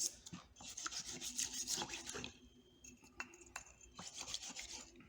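A rusty hand tool being scrubbed clean after a vinegar soak: quick rasping scrub strokes for about two seconds, then a few light clicks.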